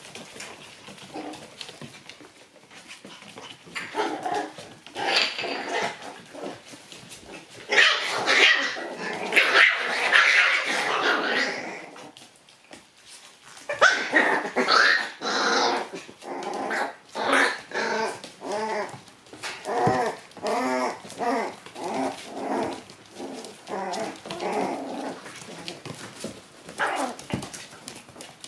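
Shiba Inu puppies, one to two months old, growling and yapping as they wrestle and tug on a rope. There are loud scuffling bursts in the first half and a quick run of short, high puppy barks in the second half.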